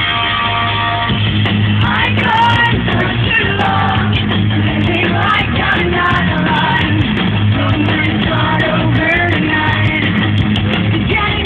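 Live rock band playing loud, with a woman singing lead vocals over electric guitars, bass and drums. The band holds a chord at first, and the voice comes in about two seconds in.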